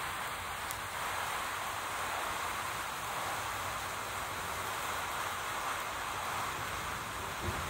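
Ammonium dichromate heap still decomposing, a steady even hiss as the glowing crystals break down and throw off sparks.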